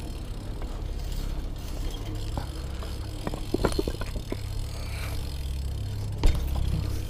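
BMX bike rolling over paving, with a steady low rumble from the tyres and a few light rattling clicks from the bike. A single sharp knock about six seconds in.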